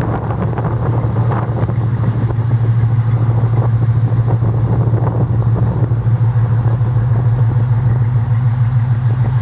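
Chevrolet 350 small-block V8 of a custom 1952 Chevrolet 3100 pickup idling steadily, a low, even exhaust note.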